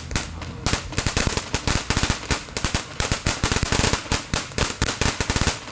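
A string of firecrackers going off: a rapid, irregular run of sharp cracks, many each second.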